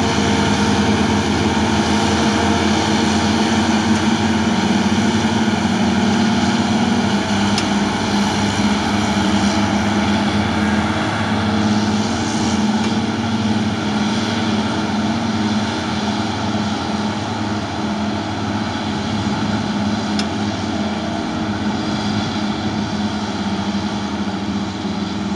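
Heavy diesel engines of Caterpillar 627G motor scrapers running steadily. The engine note shifts slightly about seven seconds in and then slowly grows fainter.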